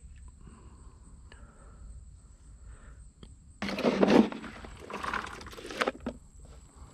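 A hand scooping wet boiled deer corn out of a plastic bucket, the kernels rustling and scraping against the plastic for about two seconds, starting about halfway in.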